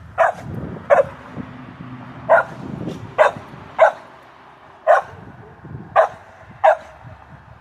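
A dog barking: eight short, sharp barks at irregular intervals, roughly one a second, directed at another dog despite being told to cut it out.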